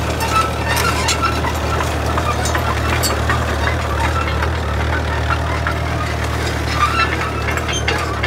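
Kubota U55-4 mini excavator's diesel engine idling steadily, a low even hum, with scattered light crunches of footsteps on gravel.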